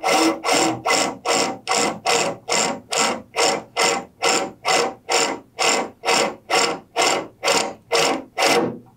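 A drill slowly cutting a hole through a school bus's sheet-metal roof: a regular rasping stroke about two and a half times a second. It stops just before the end.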